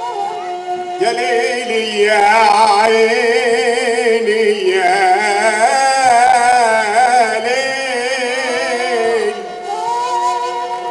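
A male singer singing an Egyptian mawwal, stretching long vowels with wavering, ornamented pitch over held flute notes. The voice comes in about a second in and stops near the end, leaving the flutes' steady notes.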